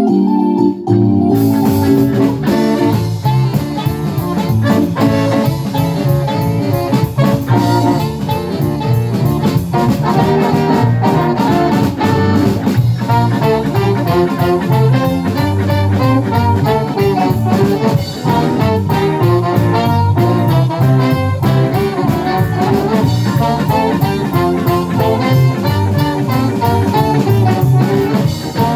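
Live jazz-pop band playing a fast song: electric piano at first, then drums, bass and horns come in together about a second and a half in and play on as a full band.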